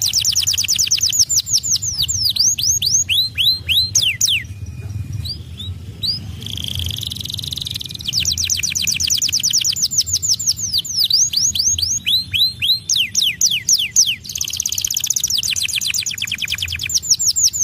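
White domestic canary singing: long rolling trills of rapid down-slurred notes, about ten a second, mixed with slower swooping notes, with a short break about five seconds in.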